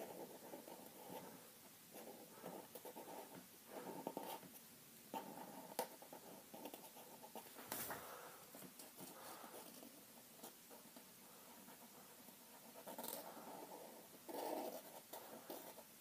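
Faint scratching of a black felt-tip marker being rubbed back and forth on paper as it fills in an area, with a few soft clicks.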